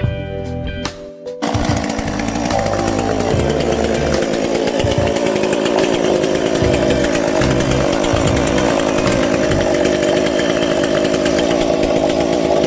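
Kell 5800 gas chainsaw engine that comes in suddenly about a second and a half in and then runs steadily and loudly, with background music underneath.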